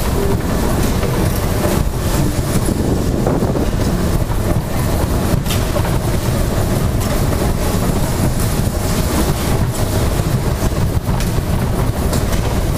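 Dodgem car running across the plated metal arena floor: a steady, loud rolling rumble, with a few faint sharp clicks scattered through it.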